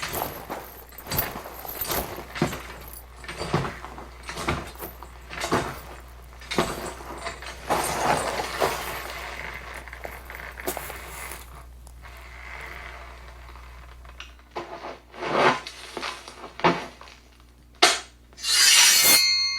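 A run of irregular knocks, clicks and rubs, roughly one or two a second, with a steady low hum beneath; after about 14 s the hum stops and a few sharper separate hits follow, then a short hissing burst near the end.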